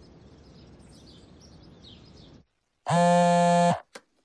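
Faint outdoor ambience with birds chirping, which cuts out after about two and a half seconds. Near the end comes a loud, steady buzzing tone lasting about a second, then a single short click.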